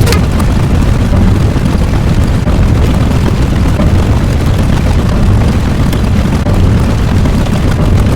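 Loud, continuous low rumble sound effect, steady throughout, with no distinct separate blasts.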